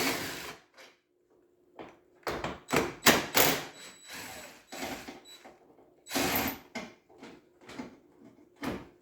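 Hand-tool work on 10 mm fasteners: a run of irregular clicks, knocks and short rattling, scraping stretches of metal tools against the fasteners and plastic parts.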